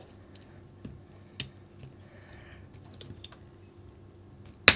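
Light clicks and taps of small plastic RC car kit parts being handled and fitted to the chassis, with one much louder, sharp click near the end.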